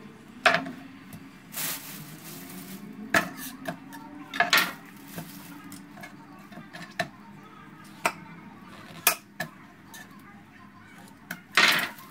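Kitchen knife knocking and scraping on a wooden cutting board while needlefish are cleaned: a dozen or so irregular sharp knocks and short scrapes, the loudest a brief clatter near the end.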